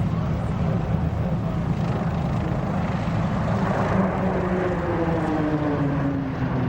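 Pilatus PC-9 single-engine turboprop aircraft flying past with a steady engine and propeller drone. About four seconds in, the pitch begins to fall as the aircraft passes.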